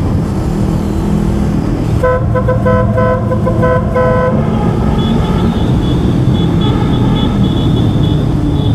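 A vehicle horn tooting in a quick run of about six short blasts, about two seconds in, over steady motorcycle engine and road noise. A higher-pitched beeping then pulses on and off through the rest.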